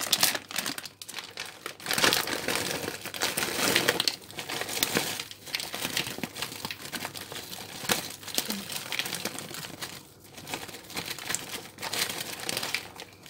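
A plastic bag of frozen cut green beans crinkling as it is shaken and squeezed, with the frozen beans tumbling out into a bowl in uneven gushes of small clicks.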